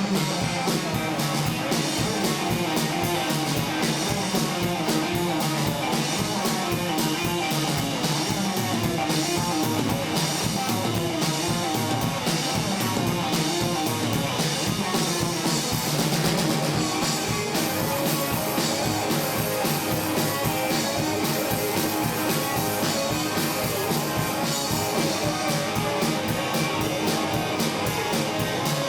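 A hill-country blues band playing: guitar over a drum kit keeping a steady beat.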